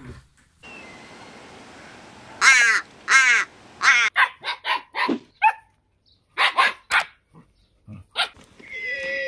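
Dogs barking and yipping: a run of loud, short barks, several in quick succession starting a little over two seconds in, ending in a held whine.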